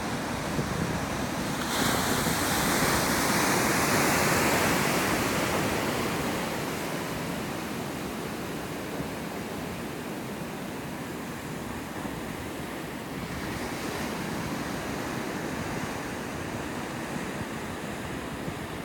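Ocean surf breaking over a shallow reef in a rough sea: a continuous wash of churning white water. A wave crashes louder about two seconds in and fades away over the next few seconds.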